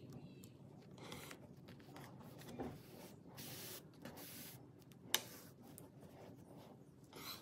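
Warp cord drawn through thick cotton rope with a long metal needle, giving several short zipping hisses, with handling of the rope on a table and one sharp click about five seconds in.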